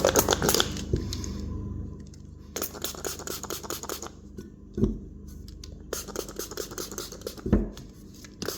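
Scratching and scraping as old foam surround and adhesive are worked off a 6-inch McIntosh car speaker, in three stretches: one at the start, one in the middle and a longer one near the end.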